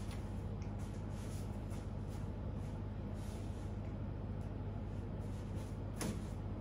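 Steady low hum of a room air-conditioning unit, with a few faint taps and one sharper click about six seconds in.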